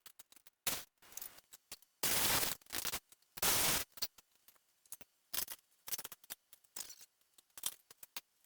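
Wrench work on the tractor's bolts: scattered short metal clicks and clinks, with two louder runs of rapid ratchet-like clicking, each about half a second long, around two and three and a half seconds in.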